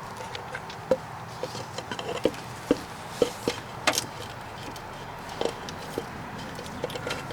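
Irregular light clicks and knocks, some with a short ring, from hands working on the crankcase ventilation oil catch can and a catch container being set under it, before it is drained.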